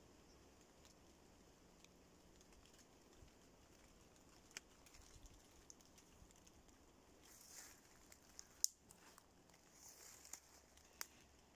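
Faint light rain pattering on oak leaves and leaf litter: a soft hiss with scattered drips ticking, growing busier in the second half, where one sharp tick about three-quarters of the way through stands out as the loudest.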